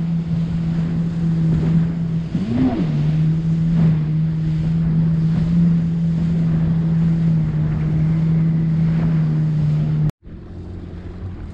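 Yamaha WaveRunner jet ski engine running steadily under way, with water and wind noise; its pitch briefly rises and falls about two and a half seconds in. Near the end the sound cuts out abruptly and returns quieter.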